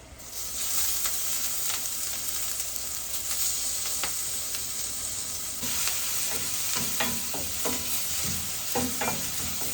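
Ginger-garlic paste hitting hot coconut oil: a loud sizzle that starts suddenly about half a second in and keeps going. In the second half, stirring strokes click and scrape against the pan over the sizzle.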